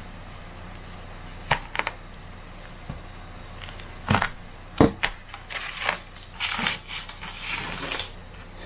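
Utility knife cutting peel-and-stick stainless-look backsplash tile, with a series of sharp clicks and snaps as small trimmed pieces break off and drop. Near the end comes a stretch of scratchy rustling as the tile sheet and its paper are handled.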